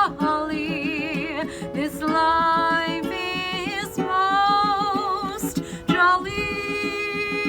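A woman singing long held notes with vibrato, accompanied by a strummed tenor ukulele.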